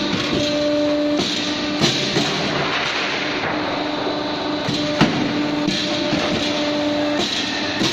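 Tile-profile roofing-sheet roll-forming machine running steadily, with a sharp knock about every three seconds from the press that stamps the step into the sheet.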